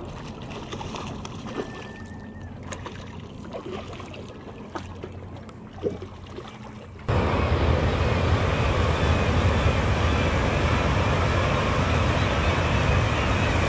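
Small splashes and scattered clicks at the water's edge as a hooked pink salmon is worked in close to the rocks. About seven seconds in, this gives way abruptly to a loud, steady rush of water pouring over a low concrete weir.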